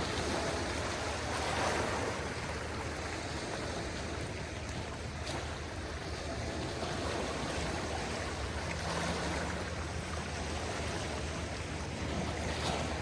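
Gentle sea waves washing onto a beach: a continuous wash of water that swells a little now and then, with a steady low rumble underneath.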